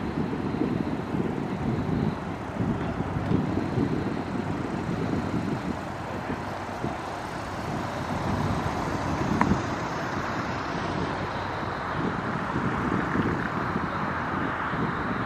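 Distant jet roar of an approaching Boeing 747-8 freighter's four engines, growing slightly louder near the end, under the gusty rumble of wind on the microphone.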